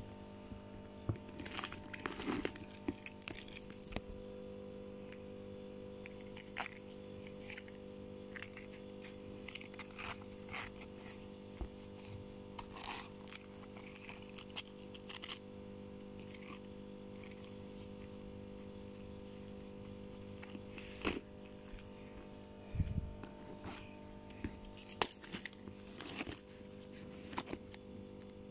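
Plastic pouches and packaging being handled, with scattered rustling, crinkling and small clicks over a steady background hum.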